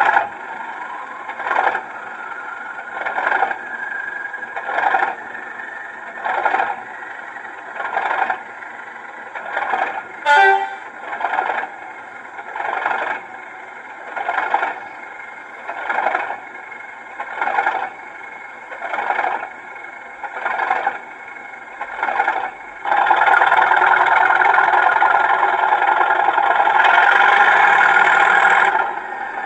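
Sound decoder in a Bachmann OO-gauge Class 37 model locomotive playing a diesel cold-start sequence through its small speaker. For about twenty seconds it gives a slow pulse roughly every second and a half, with one brief sharp ringing sound about ten seconds in. Near the end the simulated English Electric engine catches and runs loud and steady.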